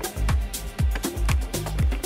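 Background music with a steady beat, about two beats a second, over heavy bass.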